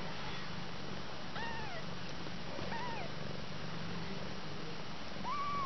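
Kitten mewing three times, short high-pitched mews that rise and fall, the last near the end the loudest, over a steady low purr.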